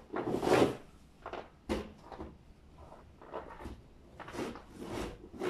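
Snow pusher shovel scraping snow across a paved driveway in a series of irregular strokes, the longest and loudest in the first second, then shorter scrapes every half second to a second.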